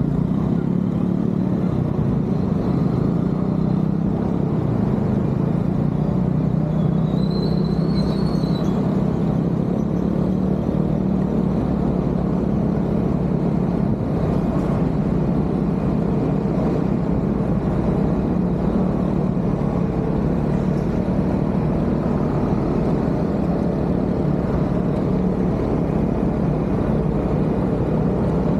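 Honda scooter ridden through city traffic: its small engine runs with road and wind noise as a steady low rumble.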